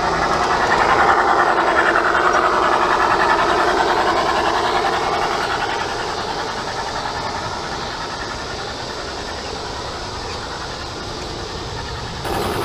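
G-scale model train rolling along garden railway track, a steady running and clatter of wheels on rails, loudest in the first few seconds and slowly fading as the cars pass by.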